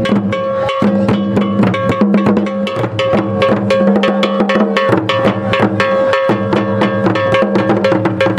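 Akan traditional drum ensemble, tall carved drums struck with curved sticks, playing a fast, continuous rhythm, over a steady held low tone.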